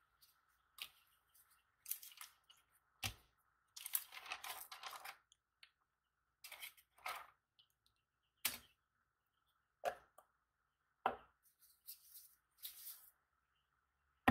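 Handling noises: paper rustling and crinkling as the parchment ointment paper is gathered off the work board, with light clicks and taps from a plastic ointment jar and its lid. A faint steady high tone sits underneath.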